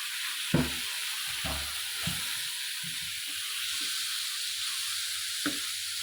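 Moong and masala frying in oil in a pot with a steady sizzle, as potatoes are added and stirred in. A few thuds and knocks come in the first two seconds, the loudest about half a second in, and one more sharp knock near the end.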